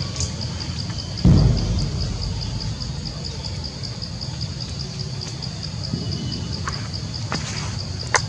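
An insect chirping steadily in a high, even pulse about four times a second, over a steady low rumble. A loud low thump comes about a second in.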